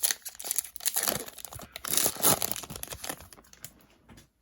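Foil booster pack wrapper crinkling and tearing open, with dense crackling that peaks about two seconds in and fades near the end.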